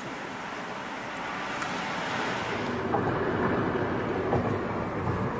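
Car road and engine noise heard from inside the cabin, with some wind noise, growing louder about halfway through as the car picks up speed.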